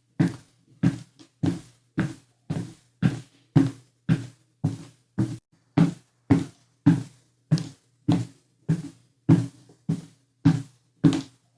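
Footsteps climbing a staircase: even, heavy thuds, a little under two steps a second.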